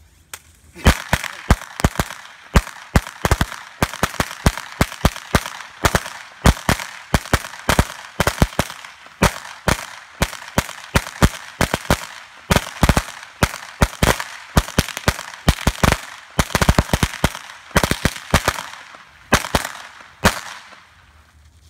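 Firecrackers going off in a rapid, irregular string of sharp bangs for about twenty seconds, with a hiss between them, starting about a second in and stopping shortly before the end.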